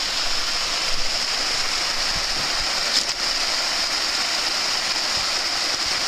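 Small waterfall spilling over mossy rocks into a stream: a steady rushing hiss of falling water.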